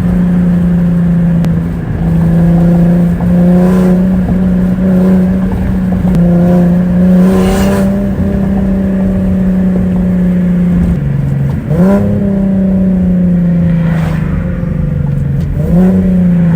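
Infiniti G37's 3.7-litre V6 with a large exhaust leak, running with a loud, steady drone that sounds bad. The pitch drops about eleven seconds in, jumps sharply up near twelve seconds, sags slowly, then jumps up again near the end.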